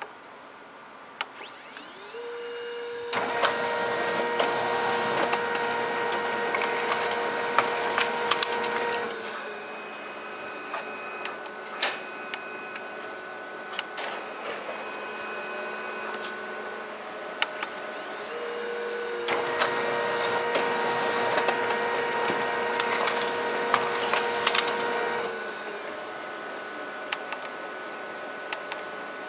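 A Ricoh 720B office machine runs two cycles. Each starts with a rising whine, holds a steady whirring hum for about six seconds, then winds down. Clicks and ticks come in between. The machine is being run to check a complaint of abnormal noise from a generic replacement part.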